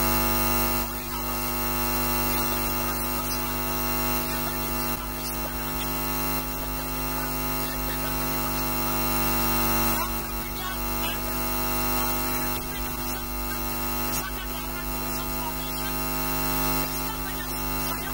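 Steady electrical hum and buzz with hiss, made of many steady tones stacked over a noisy haze, typical of mains hum in audio equipment.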